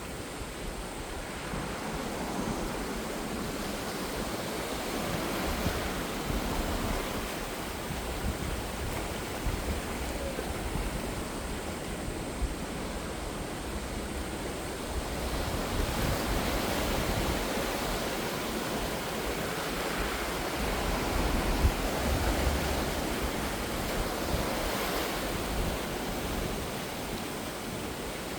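Ocean surf washing on the shore, a continuous rush of water that swells and eases as waves come in, with several louder surges.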